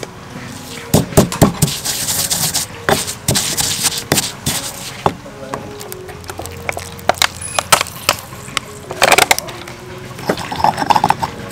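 Stone pestle pounding and grinding chili paste in a stone mortar: irregular sharp knocks of stone on stone, with bursts of quick strokes, and scraping between them.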